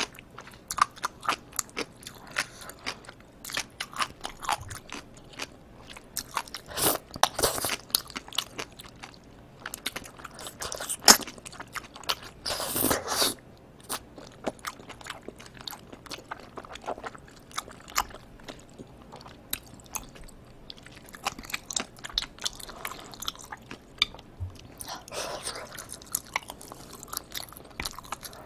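Close-miked mouth sounds of someone eating spicy tteokbokki: sticky, wet chewing of rice cakes in thick sauce, with many small clicks and smacks. There are two longer, louder wet sounds about seven and twelve seconds in.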